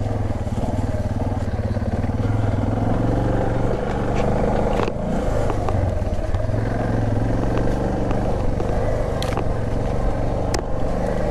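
Suzuki DR650's single-cylinder four-stroke engine idling steadily, with a few sharp clicks over it about halfway through and twice near the end.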